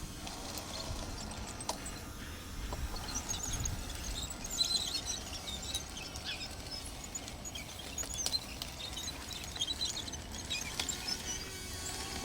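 Small birds chirping over a low outdoor rumble, with a few brief clicks.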